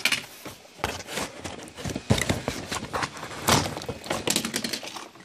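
Plastic toy train track pieces clattering and rustling as they are rummaged through in a box, with irregular clicks and knocks.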